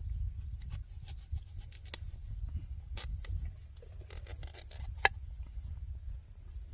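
Wood fire crackling, with irregular sharp pops and snaps over a low rumble; the loudest snap comes about five seconds in.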